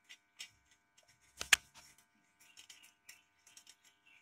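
Fingers rubbing grease over a stainless steel plate: faint scraping with light taps and clicks, and one sharp knock about a second and a half in.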